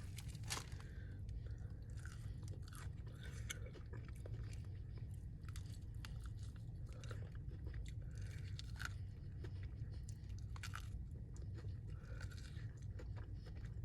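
Close-miked chewing and biting into crispy Popeyes fried chicken, with irregular crunches of the breading.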